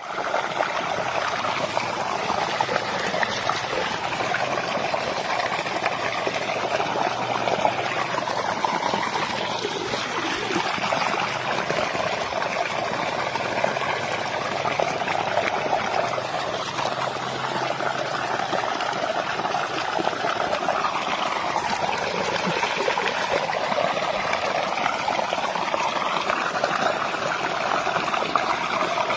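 Running water: a steady trickling flow.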